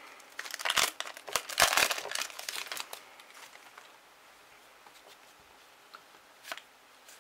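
Foil trading-card booster pack wrapper crinkling and rustling as it is pulled open, for about the first three seconds, then a couple of light taps as the cards are handled.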